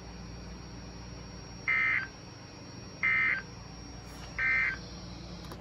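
NOAA Weather Radio end-of-message EAS data bursts: three short warbling two-tone digital bursts, each about a third of a second long and about a second and a half apart, signalling that the special marine warning broadcast has ended. They sound over the radio's steady low hum, and a sharp click follows near the end.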